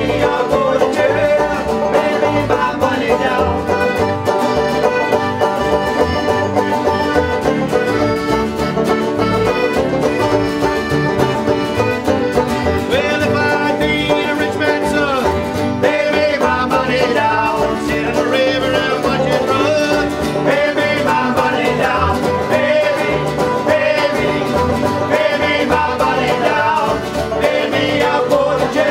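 Folk band playing an instrumental passage led by plucked strings, with no singing.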